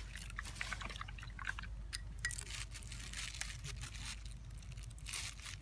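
A small spoon clinking and scraping against a glass as a drink is stirred, then crinkly rustling of a plastic bag being handled, twice in short bursts.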